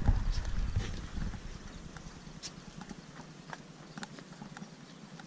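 Goat hooves clicking irregularly on hard, dry ground as the herd walks past. Wind rumble on the microphone dies away about two seconds in.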